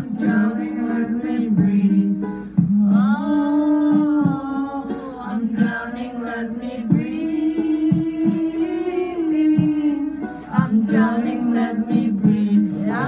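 A young man singing into a handheld microphone over a backing music track, holding long notes that bend in pitch.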